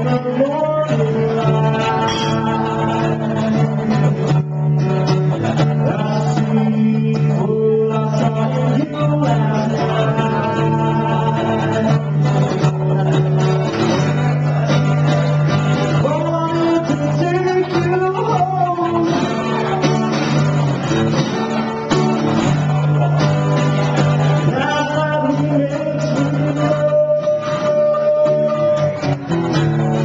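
A man singing a song while playing a cutaway acoustic guitar, a live solo performance.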